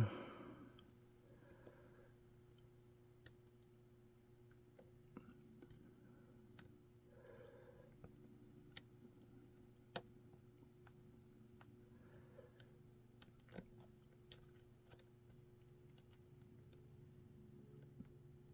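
Faint, scattered light clicks of a lock pick and tension wrench working the pin-in-pin stacks of a Mul-T-Lock Junior cylinder, every second or two. A faint steady hum runs underneath.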